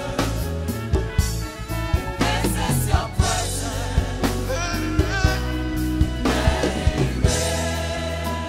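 Live gospel worship music: a band with drums and a steady bass line, with voices singing over it.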